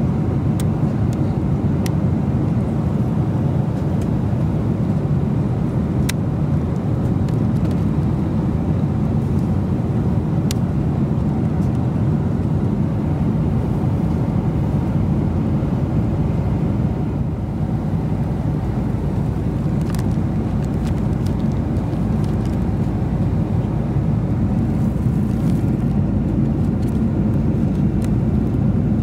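Steady roar of a Boeing 747-400 airliner cabin, with a few sharp clicks from the seatback tray table's latch and tray being handled.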